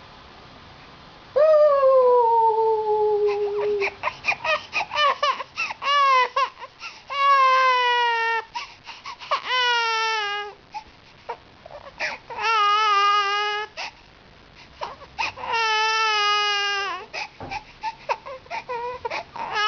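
A baby crying: a run of loud wails, each falling in pitch, with short choppy sobs between them. The first wail starts about a second in.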